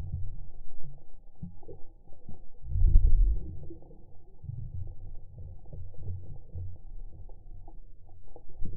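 Muffled underwater noise picked up by a camera in a waterproof housing: irregular low rumbling and soft knocks of water moving around the housing. There is a louder rumble about three seconds in.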